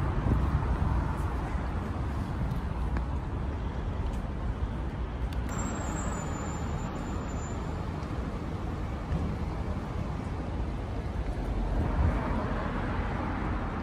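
City street traffic: cars and other road vehicles passing with a steady low rumble, a little louder near the end.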